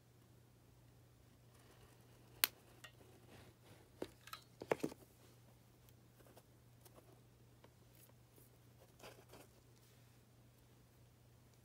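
Faint crafting handling sounds: a few light clicks and taps, the loudest about two and a half seconds in and a cluster a little before five seconds, as a hot glue gun is used and set down on the table, with soft fabric-ribbon handling in between. A low steady hum runs underneath.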